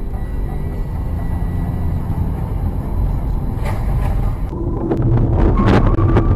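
Dashcam audio of car engine and road rumble inside the cabin, with a brief sharp noise about three and a half seconds in. After an abrupt change at about four and a half seconds it gets louder and rougher, with a cluster of sharp knocks and clatter near the end as a motorcycle crashes on the road.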